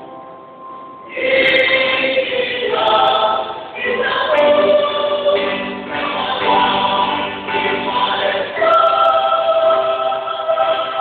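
University choir singing a song in full voice. A soft held note gives way to a loud entry of the whole choir about a second in, and the phrases break off briefly twice.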